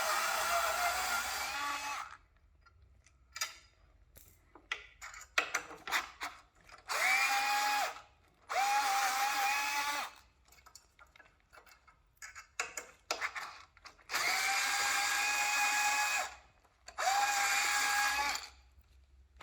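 Cordless drill-driver unfastening screws: one run stops about two seconds in, then four short runs of a second or two follow, each spinning up briefly to a steady whine. Clicks and knocks of screws and parts being handled fall between the runs.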